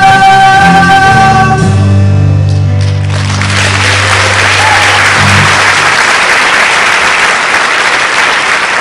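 A male singer holds the song's final note over the band for about a second and a half. The band's low final chord rings on for a few seconds, and from about three seconds in an audience applauds.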